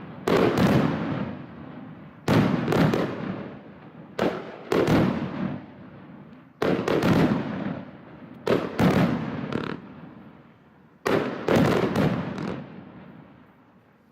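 Sky Crafter 'Redemption' firework cake going off: shells burst in quick clusters of two or three loud bangs about every two seconds. Each cluster is followed by a rumbling echo that fades before the next.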